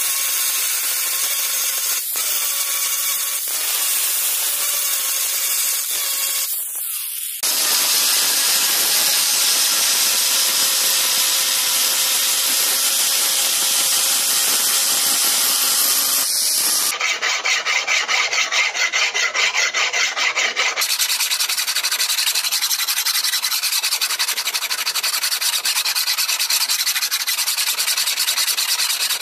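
Angle grinder with a flap disc grinding along a steel sword blade, running steadily, in a few cut-together stretches. In the later part the sound turns into quick, regular rasping strokes, with a hand file worked along the blade's edge.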